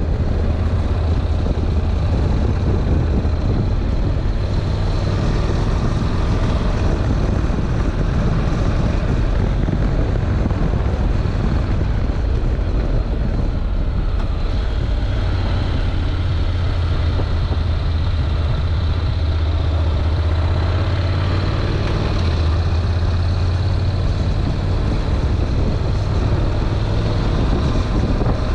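Honda NC700X's 670 cc parallel-twin engine running under way, a steady low engine note, with wind rushing over a bare camera microphone.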